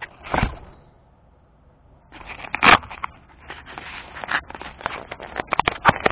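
Handling noise from a camera hanging on a neck lanyard, rustling and scraping as it rubs and bumps against the wearer's shirt, with a scatter of clicks and knocks. There is one short knock early on, a quiet pause, and then dense rustling and clicking, with a loud knock about two and a half seconds in.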